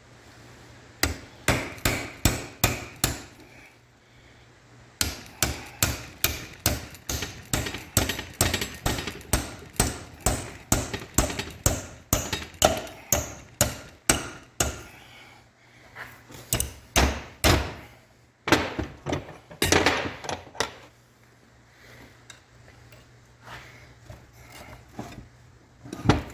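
Repeated hammer blows, about two a second, in several runs with short pauses between them, used to knock out a tight-fitting part of the John Deere 830 clutch.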